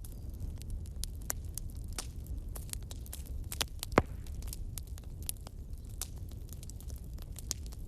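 Wood bonfire burning, crackling with frequent irregular pops and snaps over a low, steady rumble of the flames; one much louder pop about halfway through.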